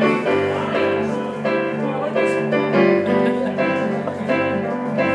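Electric keyboard played with a piano sound: the instrumental intro of a song, with chords struck again and again in a steady rhythm.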